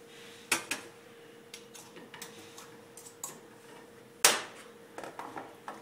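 Clinks and knocks of a bowl and spoon against a coffee grinder's dosing chamber as ground coffee is put back into it: a scatter of sharp taps, the loudest a little past four seconds in.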